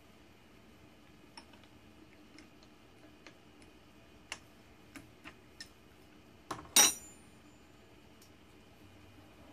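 Light scattered metallic clicks and taps while the milling machine stands stopped, then a sharp metal clink with a brief high ring about seven seconds in.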